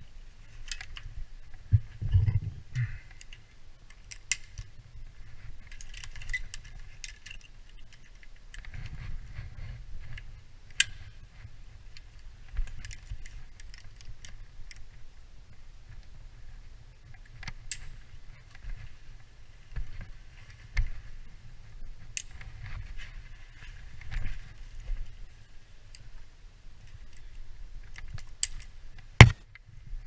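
Metal climbing hardware, carabiners and rope-access gear, clinking and rattling in the hands, with scattered sharp clicks; the loudest is a sharp click near the end. A low rumble runs underneath from about a third of the way in.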